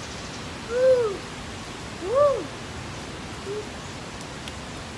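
A bird cooing: three short hoot-like calls that rise and fall in pitch, the last one faint and brief, over the steady hiss of rain.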